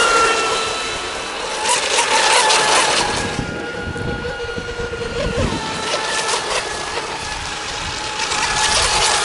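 Fast electric model racing boats running laps, their motors giving a steady whine in several overlapping pitches that drift slightly as the boats pass.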